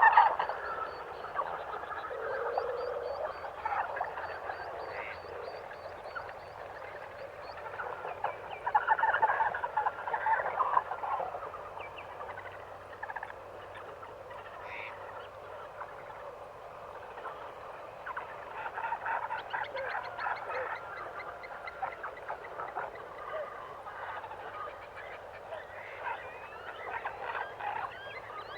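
Frog croaking in bursts of rapid pulses, with other animal calls between them.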